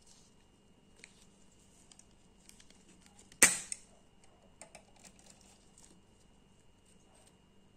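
Small metal parts of a disassembled Marksman air pistol clicking and tapping as gloved hands work the coil mainspring and piston into the frame. There is one sharp, loud metallic snap about three and a half seconds in.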